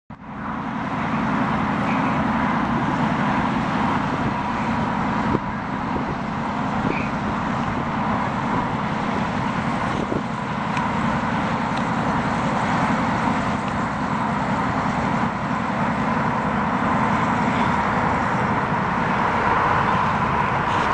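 Cummins QSM-11 marine diesel engines running steadily, a constant drone with a held hum.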